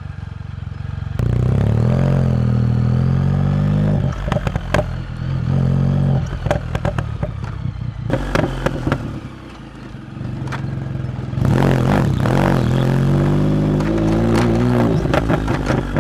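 Can-Am Spyder F3-S's Rotax 1330 three-cylinder engine revved through its exhaust, three times held high for a few seconds, settling lower in between, with sharp pops and crackles along the way.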